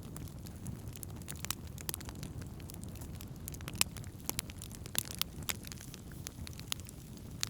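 Wood campfire crackling, with irregular sharp pops and snaps over a low steady rumble; the loudest pop comes about halfway through.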